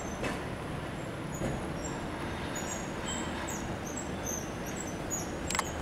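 A vintage electric tram approaching along its street track, over a steady street background. Short high chirps are scattered throughout, and a couple of sharp clicks come near the end.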